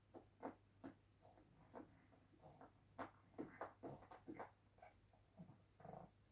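A pug making a string of short, quiet noises while playing, several a second, most crowded about halfway through.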